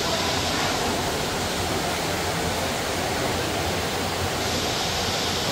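Steady rush of flowing water in an open aquarium pool, even and unbroken.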